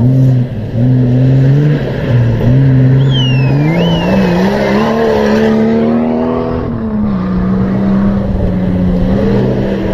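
Off-road race vehicle's engine running under load, its pitch rising and falling as the throttle is worked. About three to four seconds in there are a couple of brief high-pitched falling squeals.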